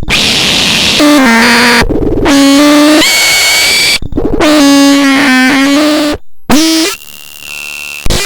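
Harsh, loud noise from a homemade analog synthesizer: buzzing pitched tones with stacked overtones over hiss, stopping dead and restarting a few times. About three seconds in one tone glides upward, and near the end the sound drops to a quieter buzz.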